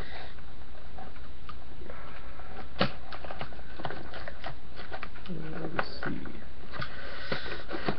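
Box cutter slitting packing tape and cardboard on a shipping box, with scratching, rustling and sharp clicks, over a steady low hum. A short voiced sound from the person comes about five seconds in.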